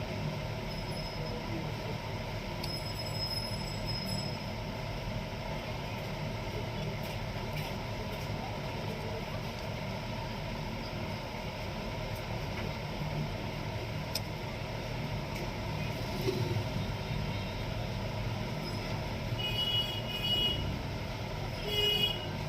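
Steady low background rumble, with a few short high-pitched tones near the end.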